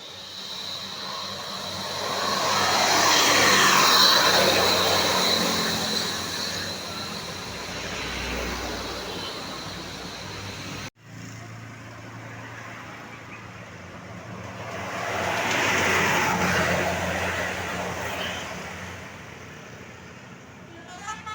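Road traffic passing close by: a vehicle's rushing pass-by swells up and fades away. The sound cuts off abruptly about eleven seconds in, then a second vehicle swells past and fades.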